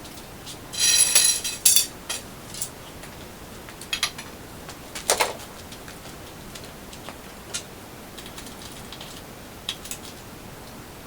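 Small metal hardware and tools handled during hand assembly, clinking and clicking. A short jangling rattle comes about a second in, a knock about five seconds in, and a few lighter ticks follow.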